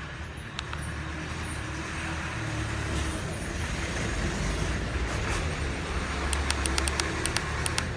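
Hiss of FM static from a small portable radio's speaker, tuned off-station near the bottom of the FM band, with a steady low rumble under it. A quick run of clicks comes near the end.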